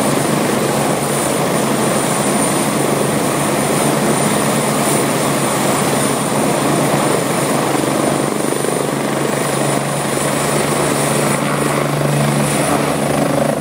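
Medical helicopter running on the ground with its rotor turning, a loud steady noise with a thin high turbine whine above it.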